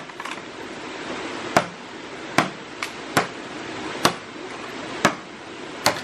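A blade chopping at a green bamboo pole: about seven sharp, separate strikes at roughly one a second. A steady stream rushes underneath.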